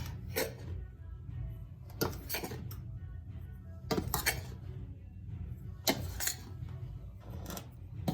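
A utensil scraping and clinking against a pan as dry cornmeal is stirred while it roasts, in short strokes that come in pairs about every two seconds. Quiet background music plays under it.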